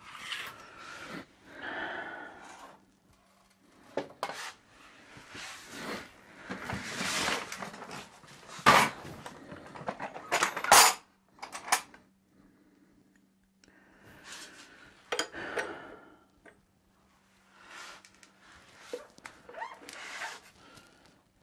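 Hand tools and metal oil-burner parts being handled: scattered clinks, knocks and rustles, with a few sharp metallic clanks around the middle.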